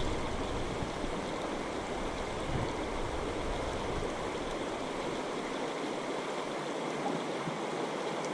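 Steady rushing of flowing river water, an even wash of moving current.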